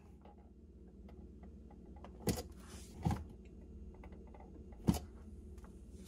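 A few soft knocks and clicks, the clearest about two, three and five seconds in, over a faint steady low hum: a Fluke electrical tester's probes being handled at a wall outlet.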